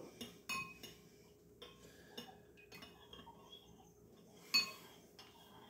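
Spoon clinking against a small ceramic bowl while stirring broth seasoning into water: a few light, scattered clinks, one of the clearer ones near the end.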